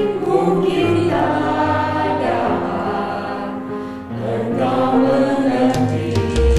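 Small choir of women and men singing a worship song together with musical accompaniment. Near the end a drum beat and a heavy bass come in.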